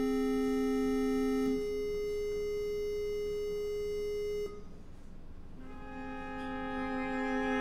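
Background music of long held notes. The note changes about a second and a half in, the music drops away briefly past the middle, then a fuller chord comes in.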